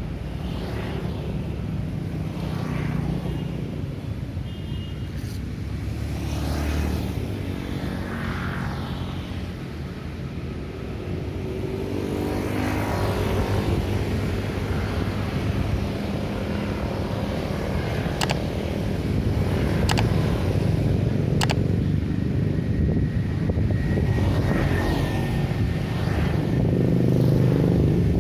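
Street traffic: a continuous rumble of car and motorcycle engines with vehicles passing one after another. A few sharp clicks sound about two-thirds of the way through, and a thin steady high tone runs for a few seconds near the end.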